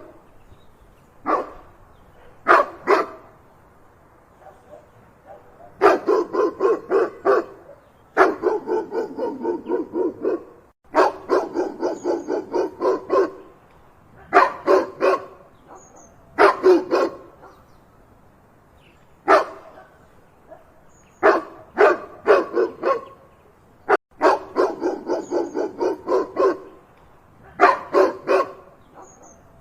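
A dog barking loudly in bouts of rapid barks, several a second, with short pauses between the bouts.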